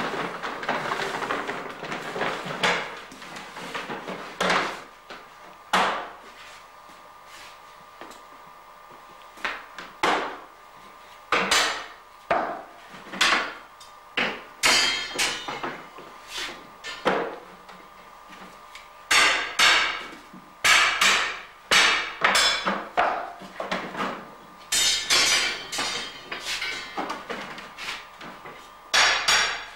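Hammer blows on a wooden herring barrel as a cooper sets it up: single knocks spaced out at first, then quick runs of strikes in the second half. A rushing noise fills the first few seconds.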